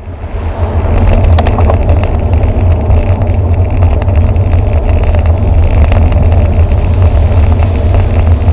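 Wind rushing over a bicycle-mounted camera's microphone while riding, a loud steady low rumble, mixed with the noise of passing road traffic.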